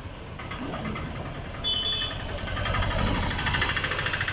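A motor vehicle's engine running with a fast, even chug, getting louder about halfway through. There is a short high beep about two seconds in.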